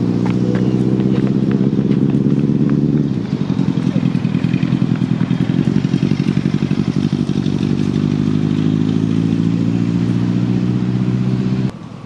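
Engine running loud and steady with a low hum, changing about three seconds in to a fast, even pulsing throb, then stopping abruptly just before the end.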